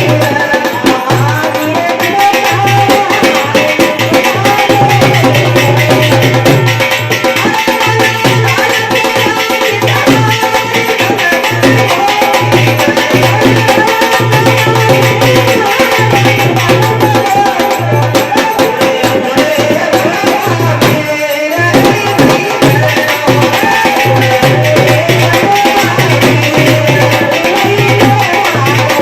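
Rajasthani folk bhajan music: a melody over steady, fast hand-drum and rattling percussion, breaking off briefly about three-quarters of the way through before carrying on.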